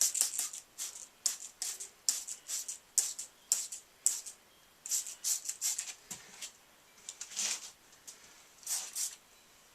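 Detergent water being applied to an ATV tire's bead in a quick series of short hissy strokes, to lubricate the bead so it will seat on the rim.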